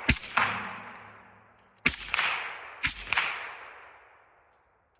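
Three shots from a suppressed Zastava ZPAP92 7.62x39 AK, the second coming nearly two seconds after the first and the third a second later. Each shot is followed about a third of a second later by a second sharp crack of the bullet's impact, then a long fading ring.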